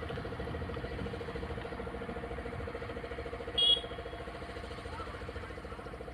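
A steady, even motor hum, with one short, loud, high-pitched sound about three and a half seconds in.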